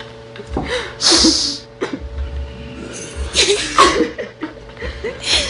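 A person's short, breathy vocal bursts, three of them, the loudest a sharp hissing one about a second in.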